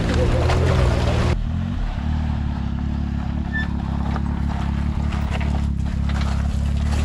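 Can-Am X3 side-by-side's three-cylinder engine running, with wind and splashing noise over it. About a second in, the noise above the engine cuts off abruptly, leaving a steadier, lower engine drone.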